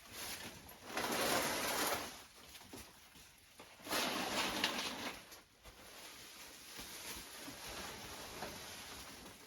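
Potted plants being moved: two scraping, rustling spells of about a second each, the first about a second in and the second about four seconds in.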